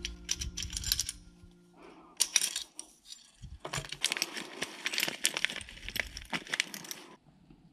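A clear plastic bag of metal motorcycle-mount hardware (bolts, spacers, brackets) handled in the hands: the plastic crinkles and the metal parts clink together, from about three and a half seconds in until just past seven seconds. Before that, a few clicks from handling the metal mount, over the tail of fading music.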